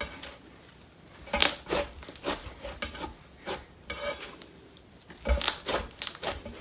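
Thick cloud slime being squished and stretched by hand, giving irregular crackly pops and squelches, with two louder flurries about a second and a half in and near five seconds in.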